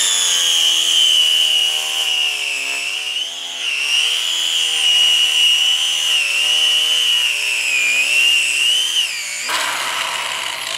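Corded electric angle grinder with a cutting disc slicing down the side of a punching bag: a loud, high whine that dips and wavers as the disc bites into the cover and filling. The whine cuts out a little over nine seconds in, leaving a rushing hiss.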